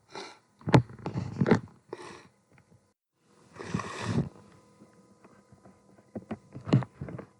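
A person sneezing and sniffling: several short, noisy bursts of breath, the longest lasting about a second near the middle, with a few sharp clicks in between.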